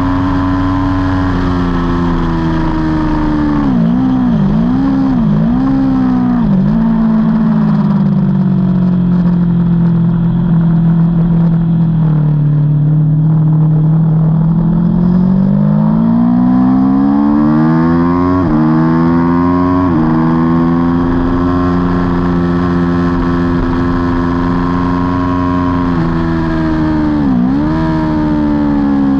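On-board sound of an Aprilia Tuono V4's 65-degree V4 engine on a race track, with wind rush. Early on the engine note dips and recovers several times in quick succession, then runs lower for a while. It climbs again, broken by quick gear changes, holds high, and drops sharply once more near the end.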